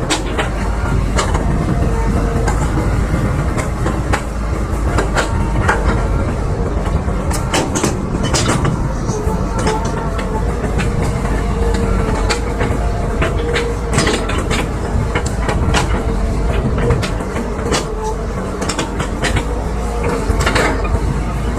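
Excavator's diesel engine running steadily with a low drone. Frequent irregular metallic clanks and knocks, typical of tracks and bucket working, sound over it.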